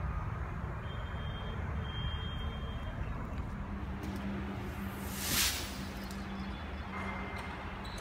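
Steady background noise with a low rumble. Two faint high steady tones sound between about one and three seconds in, and a brief whoosh comes about five seconds in.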